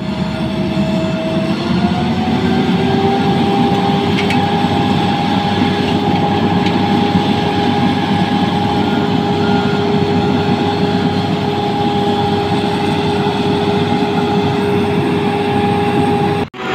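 SANY road roller's diesel engine running hard while the machine is stuck in loose gravel, with a steady whine that rises in pitch about a second and a half in as the revs come up, then holds. The sound cuts out briefly near the end.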